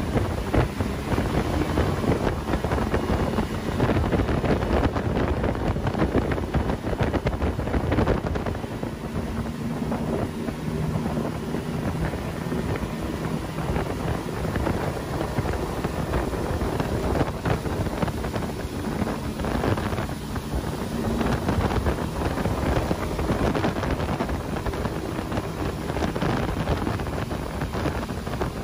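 Outboard motor of a motorboat running steadily at towing speed, under heavy wind buffeting on the microphone and the rush of the wake.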